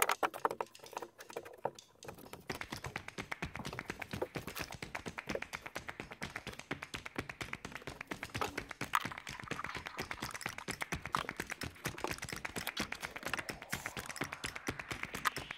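Rain pattering on a camper van's roof, heard from inside: a dense, irregular stream of small taps that thickens a couple of seconds in.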